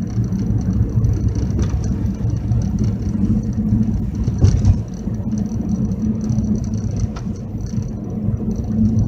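Car driving on the road, its engine and tyres making a steady low rumble, with one brief thump about halfway through.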